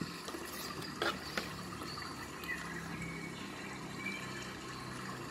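Quiet steady background noise with a faint low hum, and a few small clicks about a second in as the multimeter test leads and the ignition coil are handled on the table.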